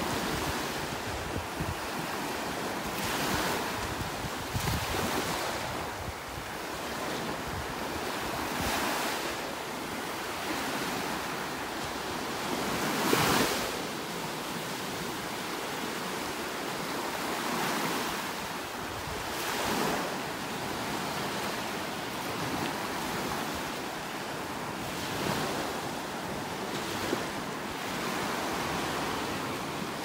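Small Gulf of Mexico waves breaking and washing up the sand, a steady rush that swells and fades every few seconds, with wind buffeting the microphone.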